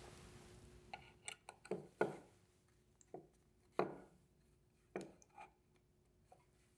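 Light clicks and knocks of a wooden tramming jig and its steel machine screw being handled and fitted into a CNC spindle's collet, about ten scattered taps with the loudest about two and four seconds in, over a faint steady hum.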